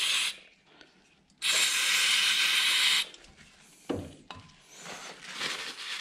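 Aerosol brake cleaner spraying in two bursts: a short one that stops just after the start, and a longer one of about a second and a half beginning about a second and a half in. A couple of light knocks follow about four seconds in.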